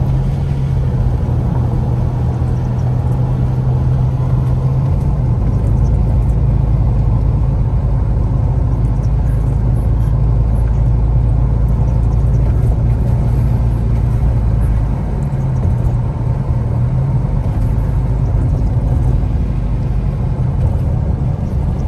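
Steady low rumble of a car being driven, its engine and road noise heard from inside the cabin.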